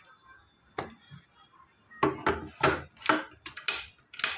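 Stainless steel mixer-grinder jar being handled and loaded: a single knock about a second in, then a run of sharp knocks and clinks, about two or three a second, in the second half.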